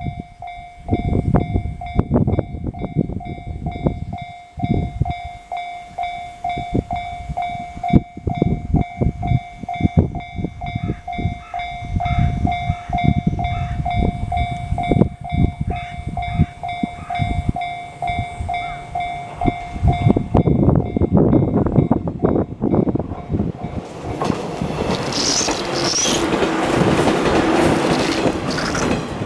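Japanese railway level-crossing warning bell ringing in a fast, steady repeating tone, with irregular low buffeting from wind on the microphone. About twenty seconds in the bell fades from hearing, and a passing train's wheel and rail noise builds into a loud rush near the end, then cuts off abruptly.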